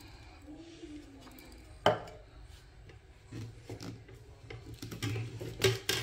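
Hard plastic parts of a humidifier being handled and fitted together: one sharp knock about two seconds in, then a run of light clacks and rubbing, with a louder clack near the end.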